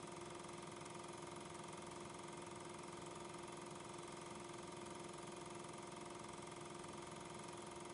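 Faint, steady hum and hiss with a few constant tones and nothing that starts or stops: a background noise floor, not the sound of a train.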